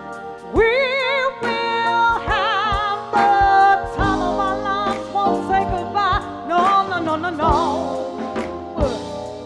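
A woman singing long held notes with heavy vibrato, backed by a live band of drums, electric guitar and keyboard. Her singing starts about half a second in and drops away near the end, leaving the band.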